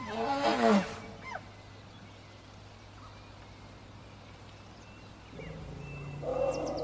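African elephant giving a short, loud call that falls in pitch in the first second, with small birds chirping in the background. About five seconds in, a low rumbling sound builds up.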